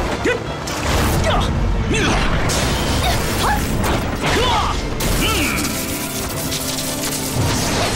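Action music score under fantasy-fight sound effects: whooshes and hits, with short sweeping cries or swishes through the music.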